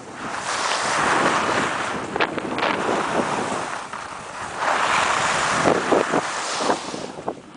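Snow scraping and hissing under a rider's edges on a descent, swelling twice as the rider turns, with short crackly scrapes and wind buffeting the microphone.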